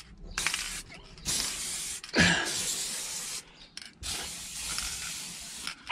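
Aerosol rattle can of paint spraying in several bursts of hiss with short gaps between them, the can all but empty and running out. A knock about two seconds in.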